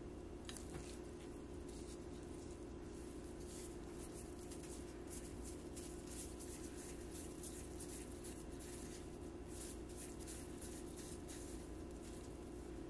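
Plastic-gloved hands rolling a ball of moist mixture between the palms, giving quick soft crinkling and squishing, with a sharp click about half a second in. A steady low hum runs underneath.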